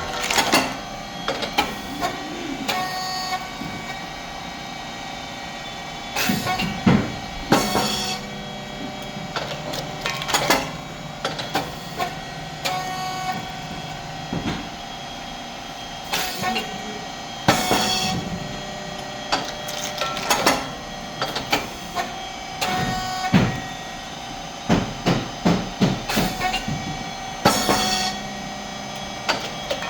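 A rice cake popping machine runs its production cycle: a steady machine hum, broken every few seconds by sharp pops and clatters as the heated moulds open and release the puffed thin rice cakes.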